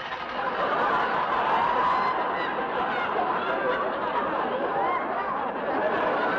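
A studio audience laughing: a long, unbroken laugh from many voices that swells about a second in and stays loud.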